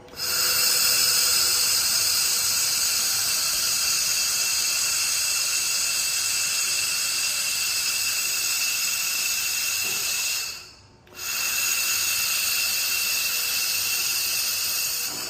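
Handheld laser welder with wire feed welding 3 mm aluminium: a steady high hiss with a thin whine. It runs for about ten seconds, stops briefly, then runs again for about four more.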